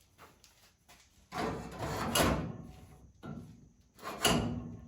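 Sheet-metal replacement kick panel for an early Ford Bronco being offered up and slid against the body for a test fit: two scraping, rattling bursts, a longer one about a second and a half in and a shorter one near the end.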